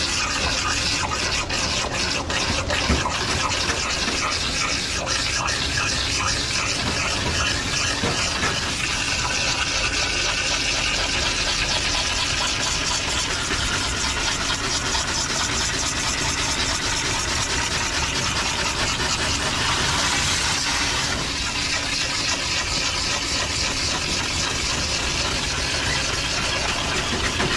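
Water spraying steadily from a dog-bathing system's hose nozzle into a wet Shetland sheepdog's coat, with the system's pump running underneath.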